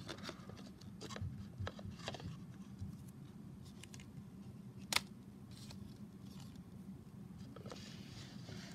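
Paper-and-tape model truck being handled: scattered light paper crinkles and small ticks, with one sharper click about five seconds in.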